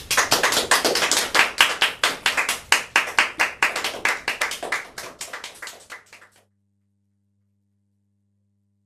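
Hands clapping in a quick, irregular run that thins out and fades away over about six seconds. The sound then cuts off to silence with only a faint low hum left.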